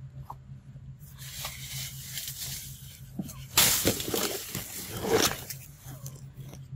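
Leaves and dry stems rustling, growing louder about a second in and loudest in two spells in the second half.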